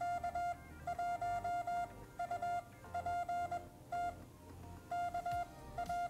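Morse code beeps from the MFJ pocket Morse code tutor's small speaker: a single steady beep keyed into quick dots and dashes with short gaps between letters. It is sending part of a simulated CQ call with the call sign K1UPT.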